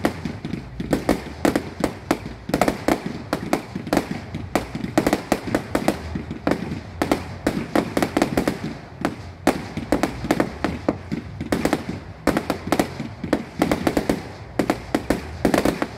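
Fireworks firing in a rapid barrage, with a dense run of sharp shots and bangs, several a second.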